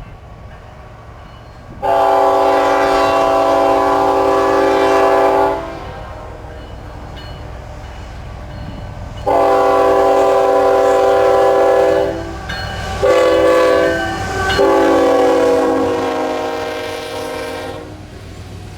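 Union Pacific GE C45AH locomotive's multi-note air horn sounding the grade-crossing signal: long, long, short, long. Under it runs the steady low rumble of the passing train.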